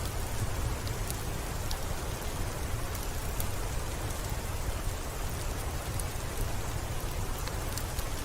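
Steady rain on a window pane, an even hiss with a low rumble beneath it, dotted with scattered faint sharp ticks.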